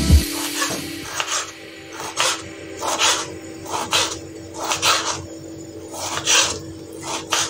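Kitchen knife slicing through a tomato on a wooden chopping board: a series of short scraping cuts ending on the board, about one to two a second.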